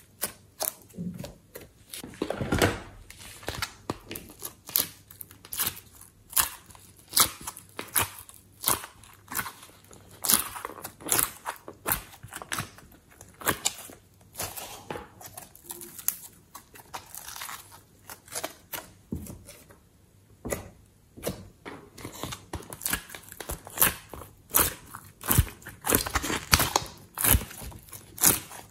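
Hands squeezing, folding and stretching sticky slime and soft clay, giving irregular wet clicks and crackling pops, several a second.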